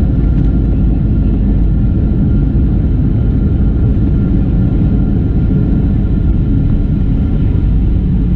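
Steady, loud cabin rumble of a Boeing 737-700 airliner: engine and airflow noise, strongest in the low end, with a faint steady whine above it.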